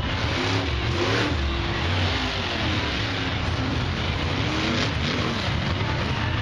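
Monster truck engine running loud with a deep rumble, its revs rising and falling repeatedly as the truck drives around the dirt arena.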